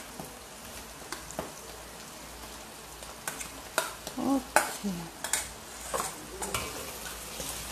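Chopped vegetables sizzling steadily in a wok as fish balls are tipped in from a metal bowl and stirred, with several sharp metal clinks of the bowl and utensil against the pan.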